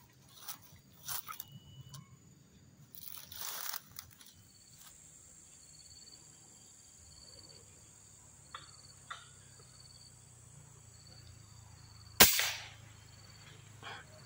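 A single sharp air rifle shot about twelve seconds in, the loudest sound, with a short tail after it. Before it come a few scattered light clicks and rustles over a faint, steady high insect drone.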